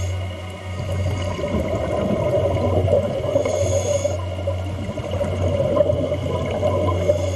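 Scuba breathing through a regulator underwater: a hissing inhalation about three and a half seconds in and another at the very end, with bubbling exhalations between them, over a steady low hum.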